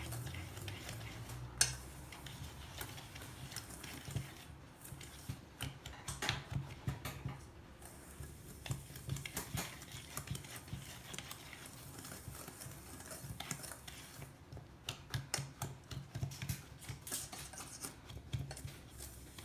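Wire whisk stirring dry flour and sugar in a stainless steel bowl, with quick, irregular ticks and scrapes as the wires strike the side of the bowl.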